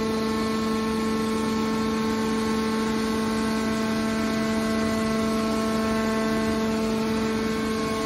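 Hydraulic power unit of a scrap-metal baler running under load as the lid cylinder swings the press lid closed: a steady, unchanging hum-whine made of several held tones.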